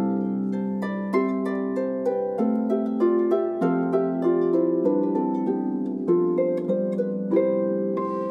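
Harp with violin, viola and cello playing Christmas tunes arranged for string trio and harp. Plucked harp notes come one after another, over held bowed notes from the strings.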